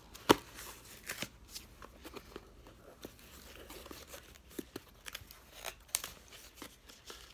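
Cardboard box being handled and opened at its end flap: scattered clicks, taps and rustling scrapes of cardboard, the loudest a sharp tap about a third of a second in.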